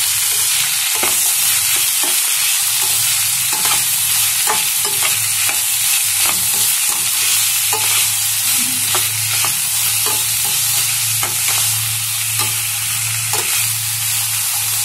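Chopped vegetables (sweet corn, carrot, green peas, onion) sizzling in hot oil in a pan while being stirred. A spatula scrapes and clicks against the pan many times at an uneven pace, over a steady low hum.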